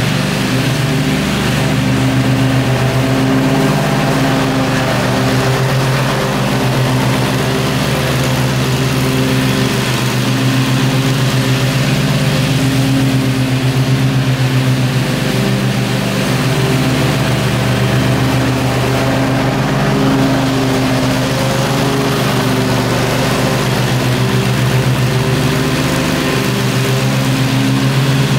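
Gravely zero-turn riding mower's engine running steadily under load as it mows thick lawn grass.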